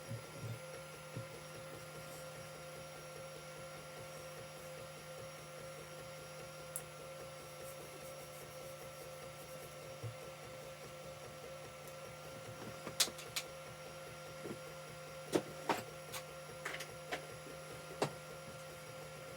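Creality CR-10 3D printer printing: its stepper motors hold a steady whine of several tones under a fast, fine pulsing. A scattered run of sharp clicks comes in the second half.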